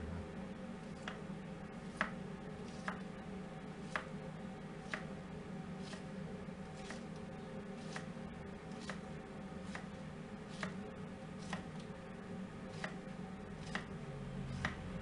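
Kitchen knife slicing through a red cabbage onto a wooden cutting board, a short crisp cut about once a second, cutting it coarsely.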